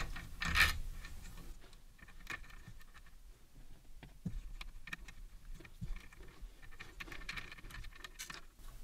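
Small metal bolts, spacers and shims being fitted by hand onto a CNC carriage plate: faint scattered clicks, ticks and light scrapes as fingers fiddle the parts into place, with a brief louder rustle near the start.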